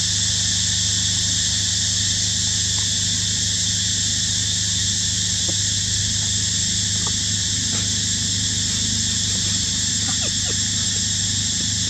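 Steady high-pitched drone of forest insects over a low steady hum, with a few faint short chirps scattered through.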